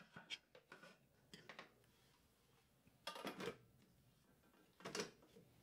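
Faint clicks and light clatter of kitchen utensils being handled. Two short, louder knocks come about three and five seconds in, as the Thermomix's metal mixing bowl is handled.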